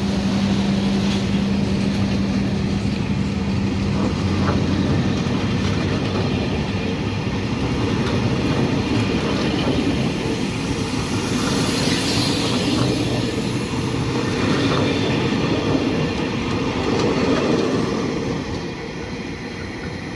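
Train running past on the track: steady wheel and rail noise, with a brighter squeal about twelve seconds in, dropping away near the end.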